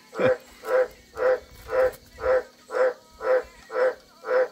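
A frog calling over and over, one short call about every half second, nine calls in a row at an even pace.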